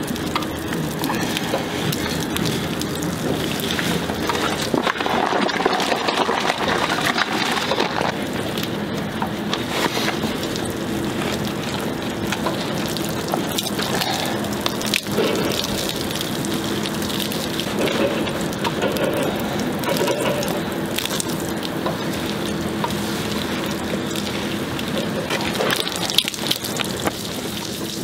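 Microfibre wash mitt wiping soapy shampoo over wet car paint during a hand wash, a steady wet rubbing hiss with many small clicks of water and suds.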